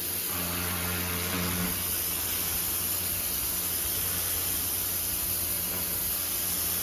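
Pressure washer running: a steady hiss of high-pressure spray over the low hum of its motor.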